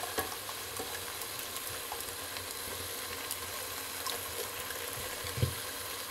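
Minced beef frying in a pot, a steady sizzle with scattered small pops and crackles, as tomato passata is poured over it. A dull thump about five seconds in.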